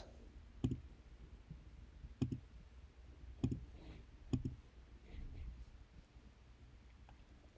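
Computer mouse clicks, four sharp clicks spaced about a second apart over faint room noise.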